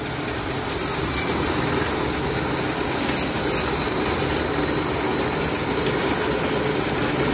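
Homemade electric band saw for cutting cattle bone running steadily, cutting through pieces of beef and bone, with a couple of brief scratchy moments about one and three seconds in.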